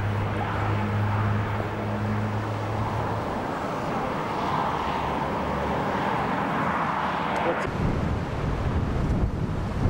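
A vehicle engine running with road noise. A steady low hum fades out about three seconds in, and from about eight seconds in gusts of wind buffet the microphone.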